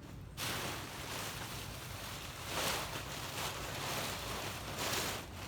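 Rustling of packing material being handled, a continuous papery hiss that swells twice.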